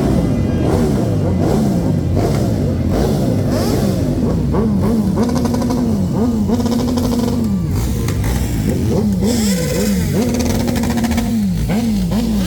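A vehicle engine being revved over and over: the pitch climbs, holds at high revs for a second or two, drops, then blips up again several times in quick succession.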